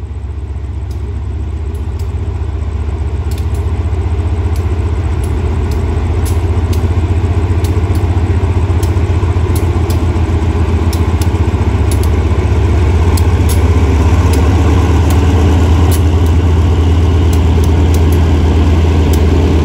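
Diesel-electric locomotive engine running with a deep, steady hum that grows gradually louder.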